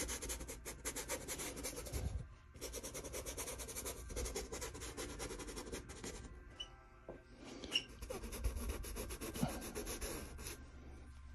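Paintbrush scrubbing acrylic paint onto a canvas in rapid short strokes (scumbling), pausing briefly about two seconds in and again past the middle.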